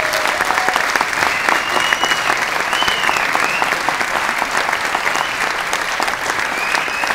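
Audience applauding steadily, dense clapping with a few high whistles about two seconds in and again near the end.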